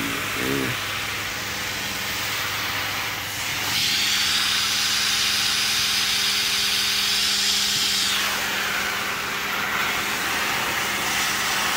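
Tankless gas water heater (geyser) running with water flowing through it: a steady hiss that grows louder from about four seconds in and drops back about eight seconds in, over a steady low hum.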